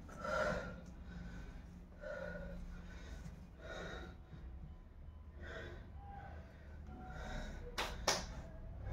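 A person's breath, with strong puffs of breath about every two seconds, and two sharp clicks near the end.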